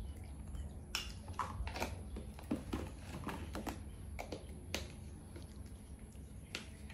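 Scattered soft clicks and taps of a plastic baby bottle and its cap being handled and unscrewed, over a low steady hum.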